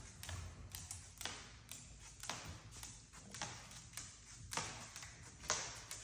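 Scarlet macaw's claws clicking and tapping on a hard floor as it walks, light taps about twice a second.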